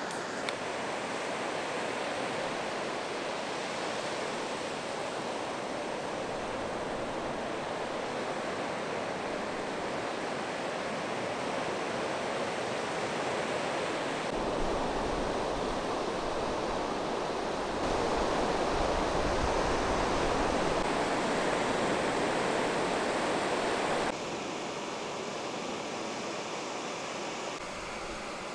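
Steady wash of ocean surf breaking on a beach. In the middle stretch it grows louder and a deep rumble of wind on the microphone joins it, and both drop away abruptly.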